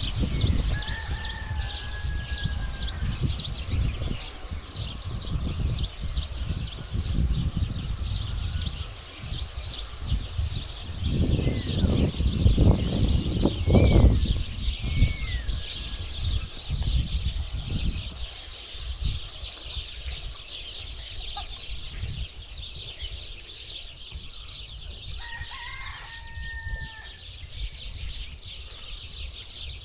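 A dense chorus of many small birds chirping without pause, with a rooster crowing twice, once near the start and once late on. Low rumbling noise comes and goes and is loudest about halfway through.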